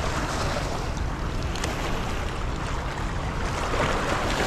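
Fast, high floodwater rushing and churning through a spillway: a steady, even whitewater rush.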